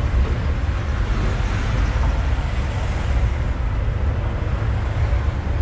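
Steady engine and road rumble of a moving baht bus, a songthaew pickup-truck taxi, heard from a rider's seat.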